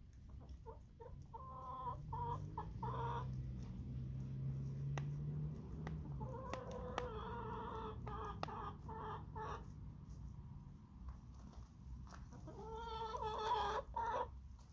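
Hens clucking as they feed, in three runs of short calls with quieter gaps between, the last run the loudest. Sharp little taps of beaks pecking on a plastic plate are scattered through it.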